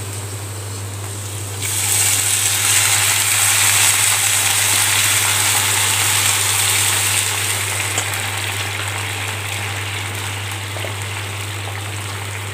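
Water poured from a tumbler into a hot kadai of sautéed vegetables, a rushing hiss that starts suddenly about two seconds in and slowly dies away, over a steady low hum.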